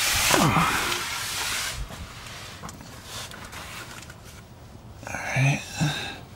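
Rustling and scraping as a person slides under a car on a cardboard mat and handles the camera, loudest in the first two seconds. A brief vocal sound comes about five seconds in.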